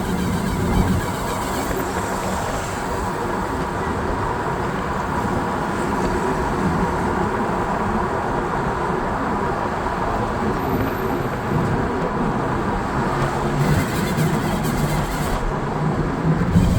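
2019 BMW X5 G05 driving, road noise with a faint steady tone in it: the cold-start noise from the rear differential's driveshaft boots, which stick and fail to turn with the driveshafts until the car warms up.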